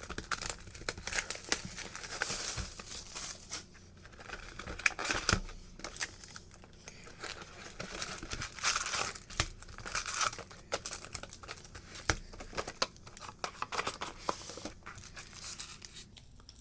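Plastic wrapping crinkling and tearing in irregular handling noises as a sealed box of baseball card packs is opened.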